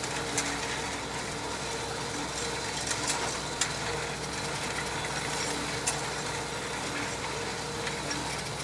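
Tractor engine running steadily while pulling a grass tedder, an even drone with a few light clicks.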